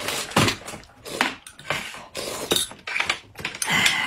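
People eating at a table, slurping and sipping thick corn soup and noodles in a quick run of short slurps, with clinks of cutlery and dishes.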